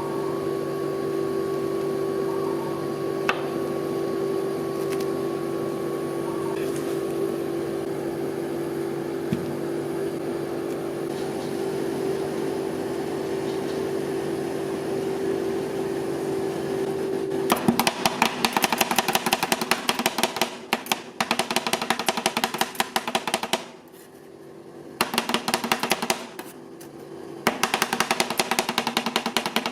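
A steady machine hum, then, about two-thirds of the way in, very fast rapid-fire tapping of metal spatulas chopping on an ice cream roll cold plate, in runs with short pauses.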